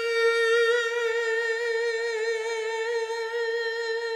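A man's voice holds one long, high sung note on a drawn-out "the", wavering slightly.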